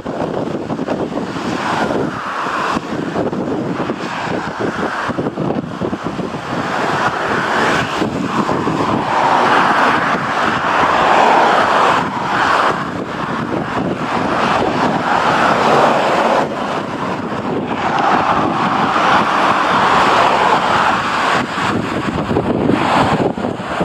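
Strong wind buffeting the microphone in gusts, a loud rushing noise that swells and eases every few seconds.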